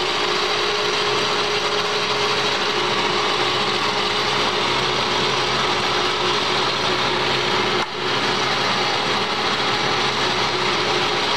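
Sheldon EXL5628 tool room engine lathe running, its gears and drive turning with the carriage power feed engaged: a steady mechanical gear noise with a steady hum through it, dipping briefly about eight seconds in.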